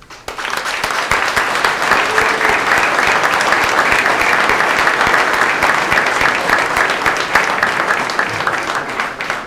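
A large crowd of people applauding: sustained clapping that starts suddenly and begins to thin out near the end.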